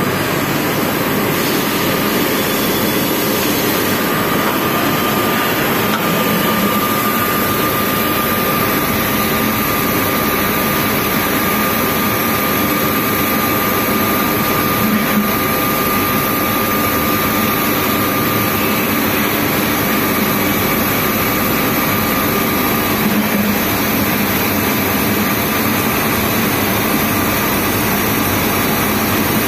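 Boehringer VDF DUS 560 CNC lathe running with its spindle and chuck turning and no cut being made: a steady mechanical running noise. A thin, steady whine sits over it and stops about three quarters of the way through.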